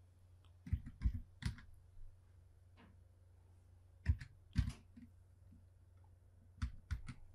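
Computer keyboard keystrokes, typed irregularly in small groups of a few keys with pauses of a second or more between them.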